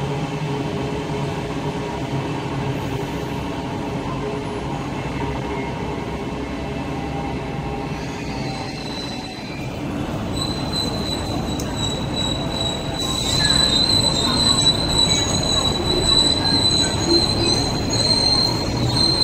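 Intercity electric multiple-unit train running with a steady low rumble, then, about halfway through, a train pulling into the platform with a high, steady wheel squeal that grows louder as it slows toward the stop.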